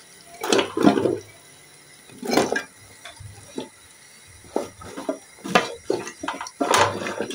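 Large raw potato chunks tipped into a pot of black-eyed peas in wet masala gravy, landing with two short, loud, wet splashes in the first few seconds. From about halfway on, a spatula stirs and pushes through the potatoes and beans in short, irregular, wet squelches and scrapes.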